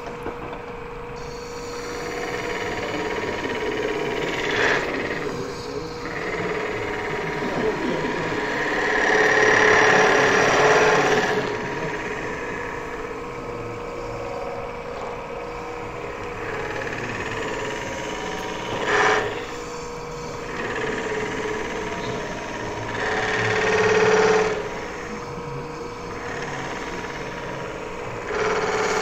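Wood lathe running with an aluminum blank spinning on it, a metal-spinning tool pressed against the turning aluminum to push it onto the form. It gives a steady hum under a rough scraping that swells loud several times, briefly near the middle, as the tool bears down.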